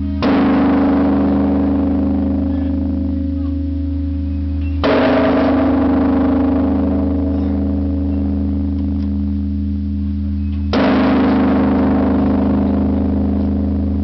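Large bronze bell struck three times with a swinging wooden log, each blow a sudden clang that rings on and fades slowly over a deep steady hum, about five to six seconds apart.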